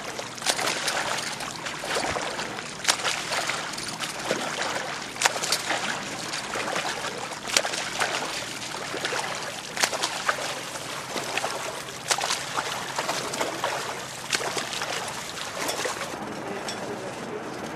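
Front-crawl arm strokes of an open-water swimmer splashing in the sea at close range, about one splash a second over lapping water; the splashing stops near the end, leaving quieter lapping water.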